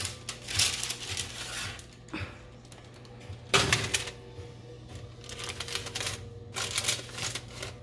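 Metal oven rack clinking and rattling and parchment paper rustling as salmon fillets on the paper are set onto the rack, in several bursts, the loudest about three and a half seconds in. A faint steady hum runs underneath.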